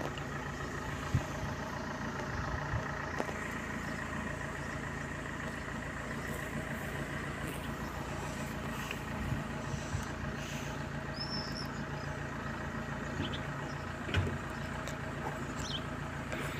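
Steady mechanical hum, a constant drone carrying a few unchanging tones, like an engine or machine running nearby. Two soft bumps, about a second in and near the end, and a faint brief chirp about eleven seconds in.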